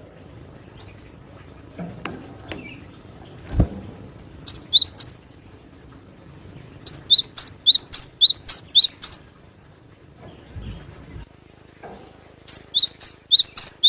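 Cinereous tit (gelatik batu) singing: three bursts of quick, sharp, rising high notes, each burst a rapid string of repeats lasting about half a second to two seconds. A single dull knock sounds about three and a half seconds in.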